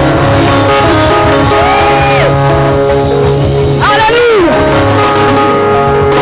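Live worship band music: sustained keyboard chords and guitar, with a voice singing two short sliding phrases, about two and four seconds in.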